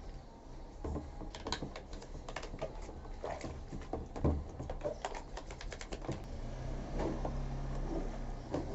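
Irregular clicks and taps of plastic washing-machine tub parts being scrubbed and handled while they are cleaned in detergent water.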